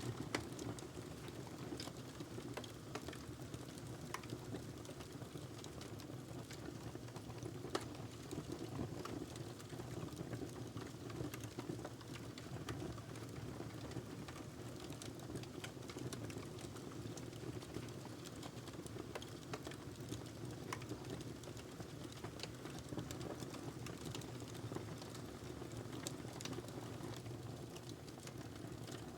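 Wood fire crackling in a fireplace: scattered sharp pops and snaps over a steady low rumble of the burning logs.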